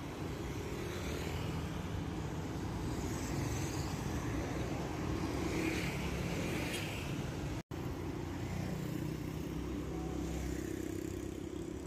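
Steady road traffic, cars and motorcycles running past on a busy street, with no single vehicle standing out. The sound drops out for an instant about two-thirds of the way through.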